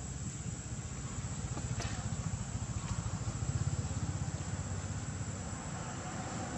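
Steady low rumble with a constant thin, high-pitched whine of insects above it; no animal calls.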